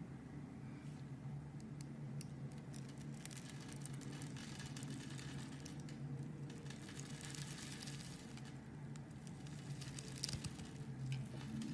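Blade cutting through a bar of soap: faint, irregular crackling and scraping, with a steady low hum underneath.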